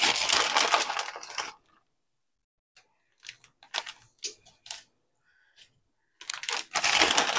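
Thin plastic salad bag crinkling as it is handled. A long burst of crinkling comes first, then scattered crackles, then another burst near the end.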